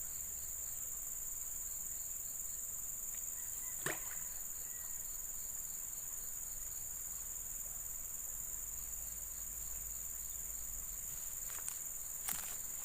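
A steady, high-pitched chorus of insects, crickets among them, fills the background. There is one sharp click about four seconds in and a few more clicks near the end.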